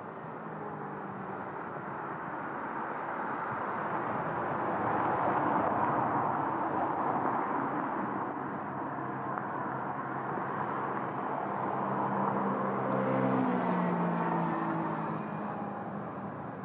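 Passing traffic swelling and fading, over a steady low electric hum from a Berlin S-Bahn train on the tracks below, which jumps up in pitch about thirteen seconds in.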